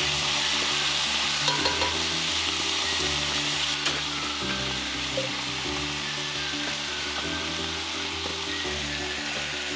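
Chicken strips sizzling steadily in hot cooking oil in a pan while being stirred, with a few light clicks of the utensil against the pan. Background music plays underneath.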